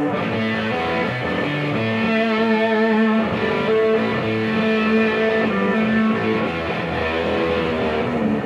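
Rock band playing live, led by electric guitar holding long, wavering notes over bass guitar.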